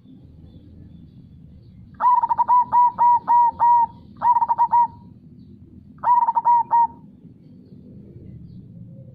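Zebra dove (perkutut) cooing in three phrases of short, clear notes, the first a run of about six. A steady low rushing of river water runs underneath.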